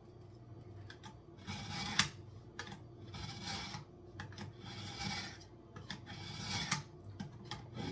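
Dull kitchen knife being sharpened: the blade is scraped along the sharpener in about five separate strokes, each lasting from under a second to over a second, with a sharp click about two seconds in.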